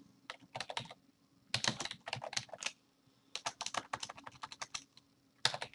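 Typing on a computer keyboard: several bursts of rapid keystrokes with short pauses between them.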